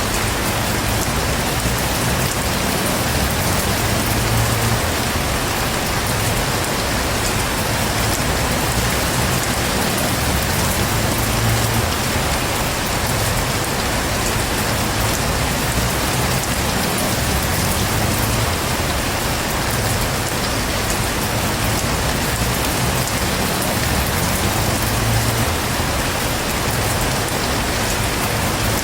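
Heavy rain falling steadily, a dense, even hiss that doesn't let up.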